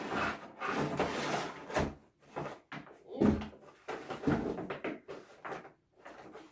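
Cardboard packaging of a kit box being opened and handled: irregular rustling and scraping of cardboard, with a few dull knocks as the box and its inner tray bump about. It thins out near the end.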